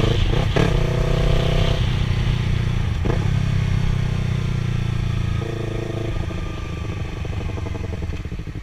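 Yamaha R3's 321 cc parallel-twin engine running under way, holding a steady note, then changing pitch and level around two seconds in and again past the midpoint as the throttle and gear change. A few short knocks in the first three seconds.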